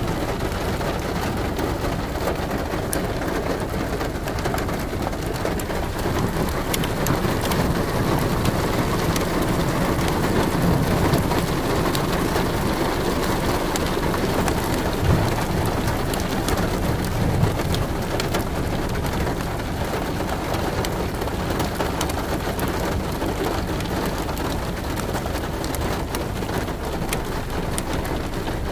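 Steady rain, with many sharp drop hits on a surface. A low rumble swells through the middle and then eases off.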